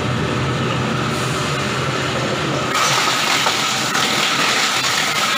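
Wood bark and coconut shell grinder machine running, a steady mechanical din with a constant whine through it. About three seconds in, a hissier grinding noise rises over it.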